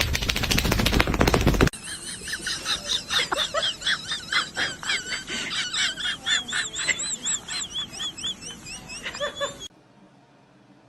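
Rapid, high-pitched, bird-like chirping or peeping for several seconds, following a short burst of loud, dense noise. It cuts off suddenly near the end.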